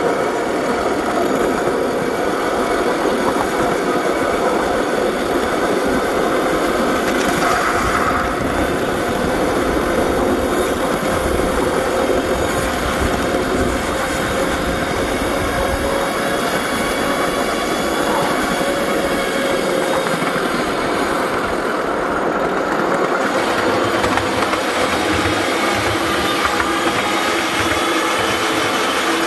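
Ridable miniature railway work train running steadily along its track: the locomotive and wheels on the rails. The sound changes near the end as the train enters a tunnel.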